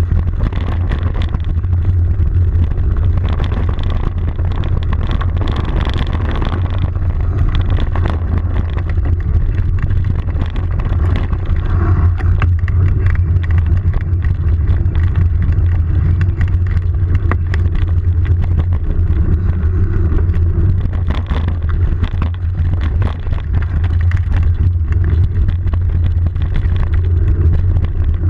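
Steady low wind rumble on the camera microphone from riding fast along a dry dirt trail, with many small clicks and rattles from the rough ground. The pitch does not rise or fall.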